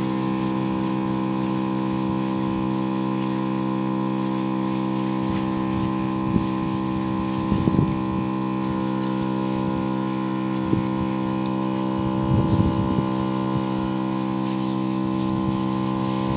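Motor-driven sprayer pump running at a steady pitch, with a few brief bumps of handling noise partway through.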